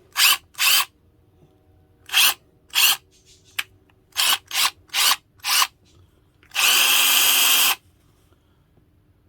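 Hart half-inch cordless drill driver running with no load: eight quick trigger blips, then one steady spin of about a second. The trigger is being tested for responsiveness.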